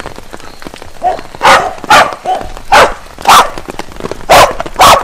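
Corgi barking, sharp loud barks in pairs about every second and a half, starting about a second and a half in, with a couple of softer yips among them.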